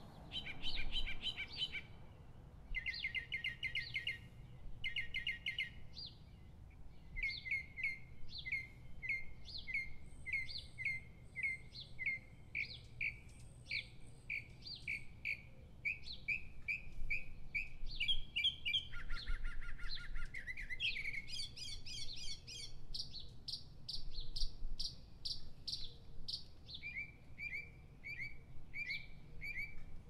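Mockingbird singing: a string of varied phrases, each repeated several times before switching to the next, mostly a run of quick repeated notes about two a second, with a lower phrase and a higher phrase in the middle.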